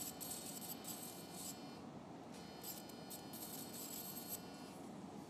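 Faint operating-room sound with a high-pitched electrosurgical unit tone switching on and off in several short spells as the cautery pen is used in dissection.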